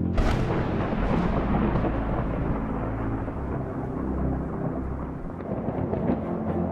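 A thunderclap cracks sharply at the start and rolls on as a long, heavy rumble that slowly eases, laid over a low sustained music score.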